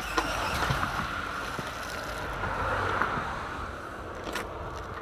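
Wind buffeting the microphone: a gust of rushing noise that swells and then eases off after about three seconds.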